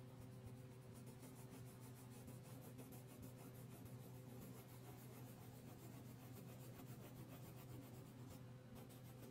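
Faint scratching of a wax crayon rubbed back and forth on paper as an area is coloured in, over a steady low hum.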